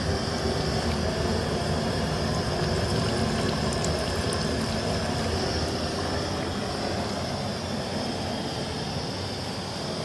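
Steady rushing noise from a pot of beef on a gas-cylinder burner as about a litre of cooking oil is poured in and starts to fry, with light crackling, slowly fading.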